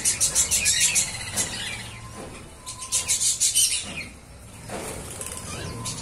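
A flock of lovebirds and budgerigars chirping in fast, high chattering runs, with wings flapping as the birds take off from the feeding dishes. The chatter comes in two bursts, one at the start and another about three seconds in.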